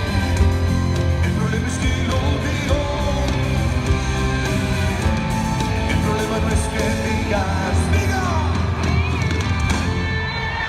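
Live band music with a male lead singer and a strong bass line, heard from the arena seats.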